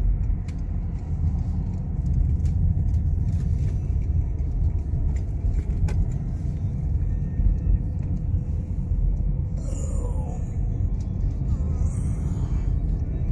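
Steady low vehicle rumble with scattered faint clicks.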